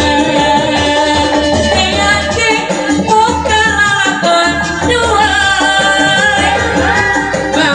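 A woman singing a Sundanese song into a microphone, amplified over instrumental accompaniment with a pulsing bass beat; she holds long, wavering notes.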